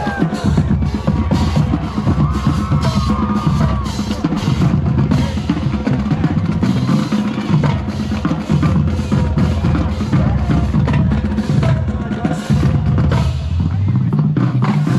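Marching band drumline playing a loud, driving groove on snare and bass drums.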